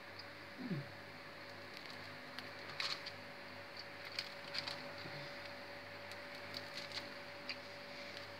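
Knife blade pressed and rocked through a sheet of sesame-and-honey brittle on parchment paper: faint scattered crackles and sharp ticks as the blade cuts through the packed sesame and scrapes the paper.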